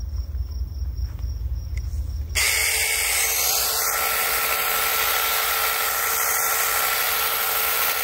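RLSOO 6-inch battery-powered mini chainsaw switching on about two seconds in and running steadily with a high motor whine as it cuts into a tree branch, after a low rumble.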